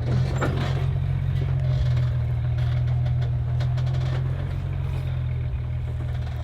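Jeep Gladiator engine running steadily at low revs while crawling slowly down a rocky trail, with a few faint ticks over the engine hum.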